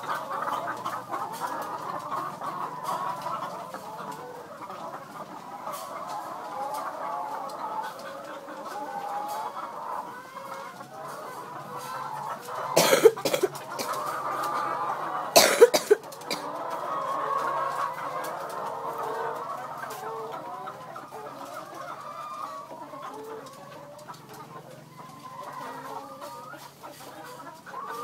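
A flock of chickens clucking in a continuous, overlapping chatter. About halfway through come two loud, brief bursts a couple of seconds apart.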